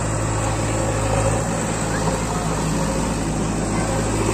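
New Holland tractor's diesel engine idling steadily, an even hum with no revving.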